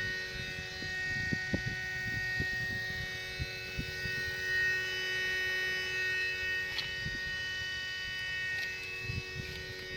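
A BMW 335i's unexplained noise: a steady whine of several held high tones that comes on when the car's power is switched on and sometimes at random with the car off. Faint low knocks come and go underneath.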